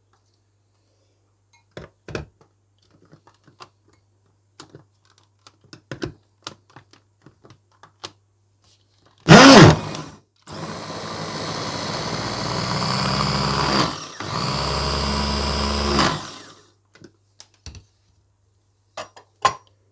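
Electric mini chopper with a glass bowl chopping green onion and vegetables. Clicks of the lid and motor unit being fitted come first, then a short loud burst about nine seconds in. After that the motor runs steadily for about six seconds with a brief break partway, and more handling clicks follow.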